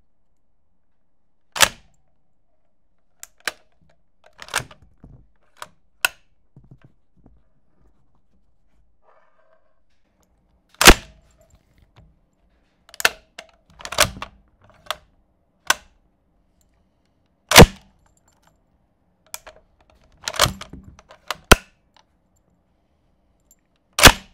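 Close-miked sharp metallic clicks and snaps of historical firearms' mechanisms being worked by hand: about a dozen separate clacks, some in quick pairs, with three louder snaps spread a few seconds apart.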